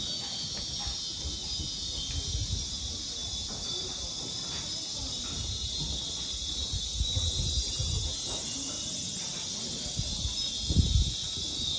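Many small cast-iron Nanbu wind chimes (furin) hanging from the temple eaves, tinkling now and then in the breeze over a steady high insect drone. Wind knocks on the microphone in low rumbles a few times, loudest near the end.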